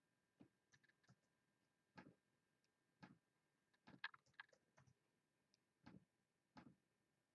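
Faint, irregular clicks of a computer mouse and keyboard as a list is selected, copied and pasted into a spreadsheet: about nine clicks, with a quick cluster around four seconds in.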